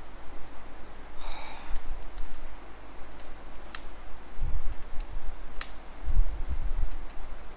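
Computer keyboard keys clicking a few times while code is typed, over a steady low hum. A short breath about a second in, and low thuds near the middle and toward the end.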